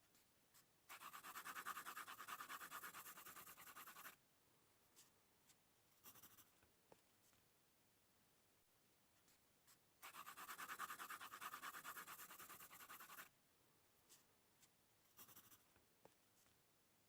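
Drawing strokes on paper: two long stretches of scratching, about three seconds each, one starting about a second in and one about ten seconds in, with a few short strokes between and after.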